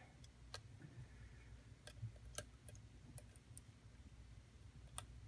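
Faint, irregular metal clicks of a lock pick and tension wrench working in a padlock's keyway, several single ticks scattered through.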